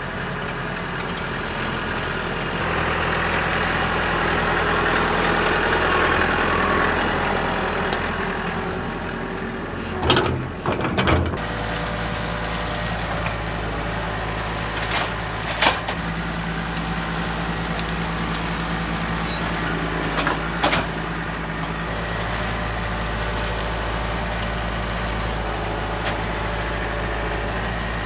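John Deere 4052R compact tractor's four-cylinder diesel engine running steadily, louder for a few seconds as it pulls away. Several sharp knocks and cracks come from about ten seconds in, as the grapple works into a pile of cut brush and branches.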